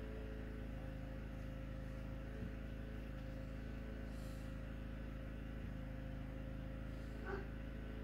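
Steady background hum with a faint constant high tone, broken only by a couple of faint ticks and a brief faint yip near the end.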